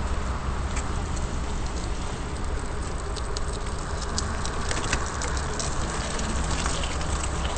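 Steady low rumble of wind buffeting a helmet-mounted camera's microphone, mixed with tyre noise from a small open vehicle rolling over wet pavement. Scattered small clicks and crackles come in, more of them in the second half.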